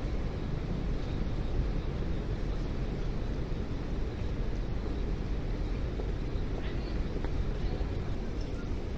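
City street ambience: a steady low rumble of traffic and urban noise, with no distinct events.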